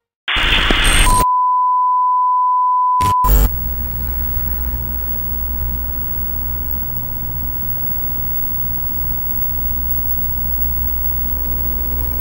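Television test-card sound effect: a short burst of static, then a steady high beep for about two seconds, cut off by a click, followed by a low steady hum with the beep still faintly under it.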